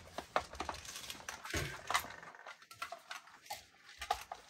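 Faint handling noise of an airsoft rifle with a pump-action airsoft shotgun mounted under it: scattered light plastic knocks and clicks as the gun is lifted and turned in gloved hands, thinning out after about two seconds.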